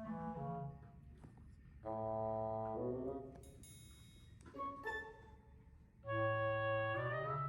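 Instrumental background music with a few long held notes, the loudest about two seconds in and again near the end.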